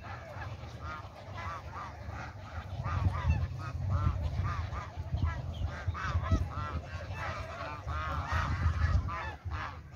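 A flock of domestic geese honking: many short calls, repeated and overlapping. A low rumble runs underneath and grows louder from about three seconds in.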